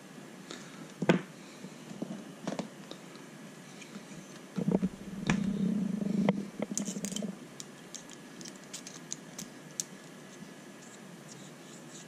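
Small plastic and metal RC shock parts being handled and set down on a paper manual: scattered light clicks and taps, a sharper knock about a second in, and about two seconds of low rubbing just past the middle.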